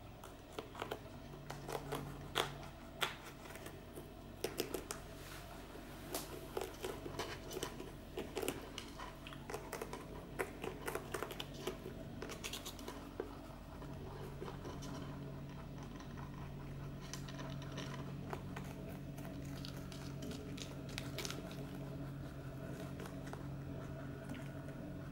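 Rabbits biting and chewing a fresh red chili pepper: quick, crisp crunching clicks, dense through the first half and sparser after about 14 seconds, over a steady low hum.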